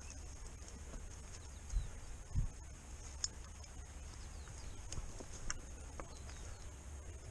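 Footsteps through dry grass and brush, with scattered light clicks of twigs and two heavier footfalls about two seconds in, over a steady low rumble.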